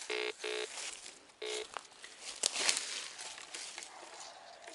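Metal detector giving three short beeping target tones, two in quick succession and a third about a second later, signalling a metal target that is taken to be another can pull-tab. A brief rustling noise follows about halfway through.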